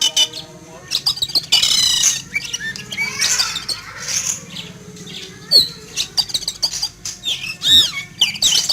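Oriental magpie-robin (kacer) calling loudly and nonstop in a fast jumble of whistles, chirps and harsh rasping notes. This agitated outburst is one the owner puts down to fright at an eagle flying over.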